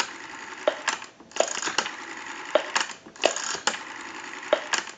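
Rotary dial of a European desk telephone being turned and let spin back three times in a row, pulse-dialing digits. Each run-back is a steady whirr framed by sharp clicks.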